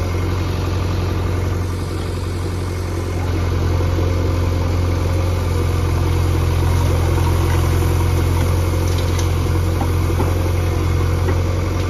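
Diesel engine of a JCB 3DX backhoe loader running steadily with a strong low hum, working a little harder from about four seconds in as the backhoe arm swings and dumps its load.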